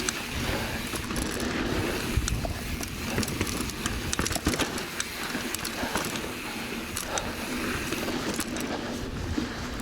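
Mountain bike rolling along a dirt trail: tyre noise on the ground with many small clicks and rattles from the bike, over a low, uneven rumble of wind on the microphone.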